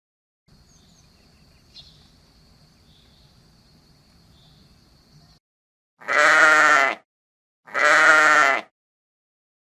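A sheep bleats twice, each call about a second long with a wavering, quavering pitch. Before the calls there is a faint, steady, high-pitched background tone.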